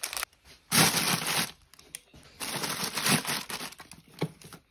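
Plastic packaging of frozen foods crinkling and rustling as the bags are handled and stacked in a freezer, loudest for about a second near the start, with a short knock near the end.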